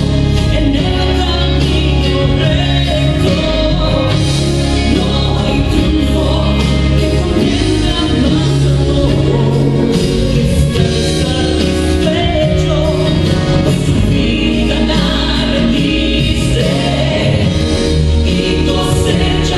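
Christian gospel song: singing over steady instrumental backing with sustained bass notes.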